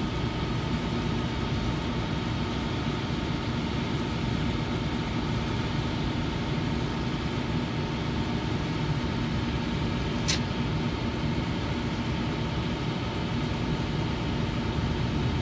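Steady hum and drone of other HVAC equipment running on the roof, with one sharp click about ten seconds in.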